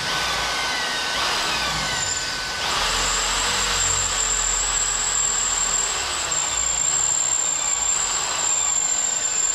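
Power drill boring a hole through a Perspex windscreen: a steady high whine over a harsh, continuous cutting hiss.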